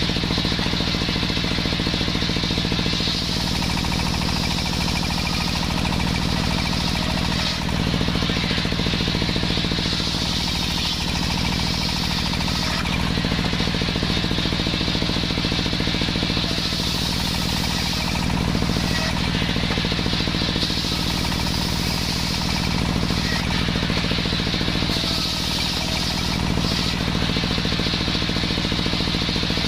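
A homemade engine-driven circular saw running without a break. It makes a steady engine hum, and a higher hissing whine comes and goes every few seconds as the blade cuts through waru wood.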